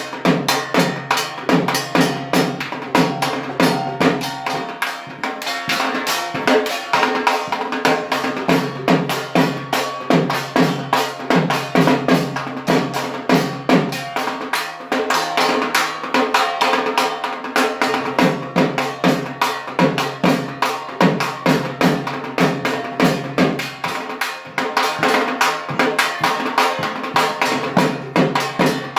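Dhak, the large barrel-shaped Bengali drum, beaten with thin sticks in a fast, steady, continuous rhythm.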